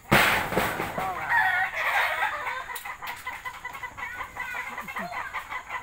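Chickens clucking in many short calls that rise and fall in pitch, after a brief loud burst of noise right at the start.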